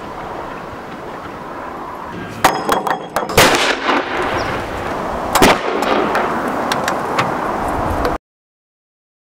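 A battery of 105 mm field howitzers firing: a cluster of sharp reports about two and a half to three and a half seconds in, the loudest at the end of it, then another heavy shot about five and a half seconds in and lighter ones after. The sound cuts off suddenly about eight seconds in.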